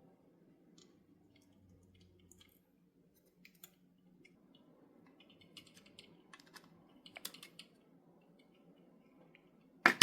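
Faint, scattered small clicks and taps of revolver parts and a small tool handled while trying to fit a tiny shim back into place, thickest in the middle, with a sharper click near the end.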